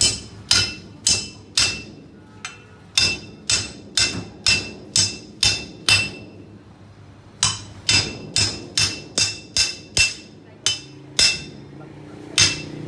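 Heavy cleaver chopping repeatedly into a giant flathead catfish's head on a wooden chopping block. Sharp chops come about two a second, each with a brief metallic ring, with a pause about six seconds in and another near the end.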